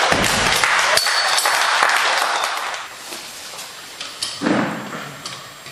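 Small audience clapping, fading out about three seconds in, with a low thud near the start as the loaded Rolling Thunder pin is set down. About four and a half seconds in there is another dull thud as the weight plates are handled.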